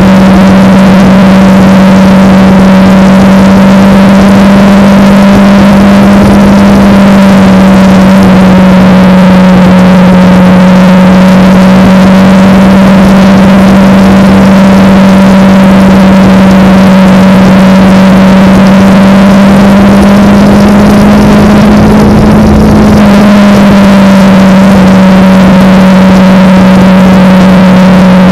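Kawasaki Ninja parallel-twin motorcycle engine cruising at a steady speed, with constant wind and road noise. The engine pitch rises a little about twenty seconds in and settles back down a few seconds later.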